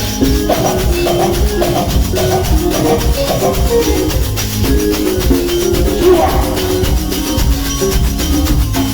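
Live band music over the sound system: a steady, driving beat in the bass with a repeating melody of short plucked notes on top.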